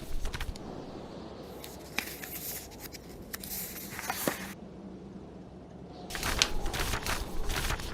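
Paper pages of a book being turned, rustling in three bursts: a brief one at the start, a longer one from about a second and a half in, and another from about six seconds in.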